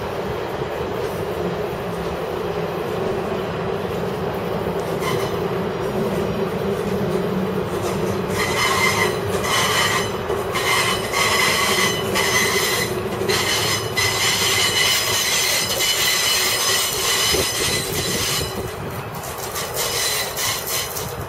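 Vintage passenger cars rolling slowly along curved track, with a steady rumble of wheels on rail. From about eight seconds in, the wheel flanges squeal against the rail on the curve, a high whistling that comes and goes for about ten seconds before easing off near the end.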